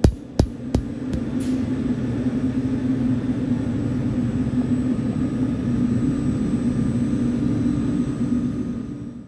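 Sharp regular clicks, about three a second, that stop about a second in, then the steady running noise of an electrostatic oil mist separator with a low hum, cutting off abruptly near the end.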